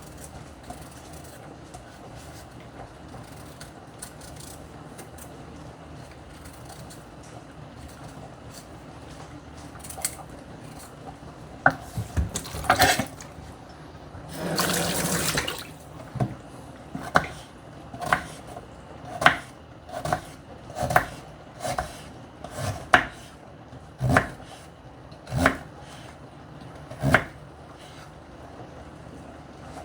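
Kitchen prep sounds: after a quiet stretch, a few clicks and a brief rushing sound, then about ten sharp knife strokes through a firm vegetable on a cutting board, roughly one a second.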